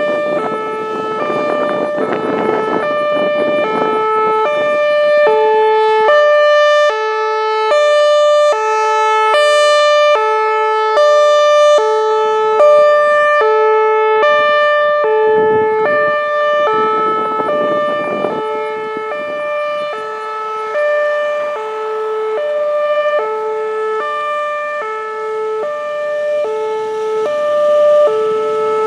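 Whelen Vortex R4 electronic outdoor warning siren sounding its Hi-Lo tone, alternating between a low and a high pitch about every half second.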